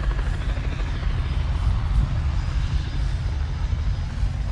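Wind buffeting the microphone: a continuous, irregular low rumble with faint outdoor background noise behind it.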